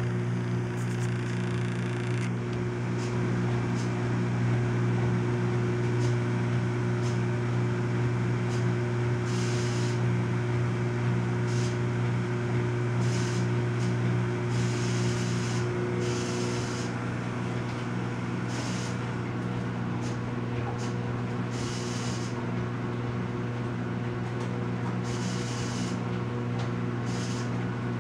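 Steady electrical hum of a running appliance motor, with brief rustles now and then as cats paw at clothes.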